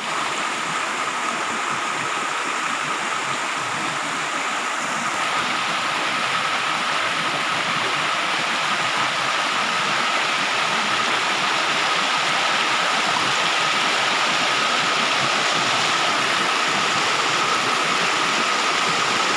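Waterfall rushing steadily, with a thin high tone running through it, growing a little louder about five seconds in.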